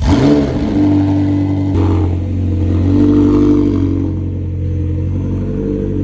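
McLaren 720S twin-turbo V8 starting with a quick rising rev flare, then running at a steady idle that swells briefly about three seconds in.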